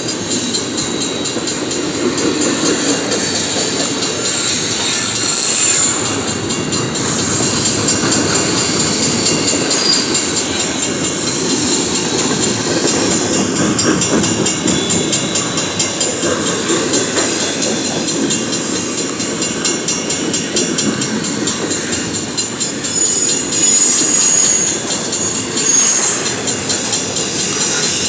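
A double-stack container train's cars rolling past at close range: a steady rumble of steel wheels on rail, with a few brief high-pitched wheel squeals.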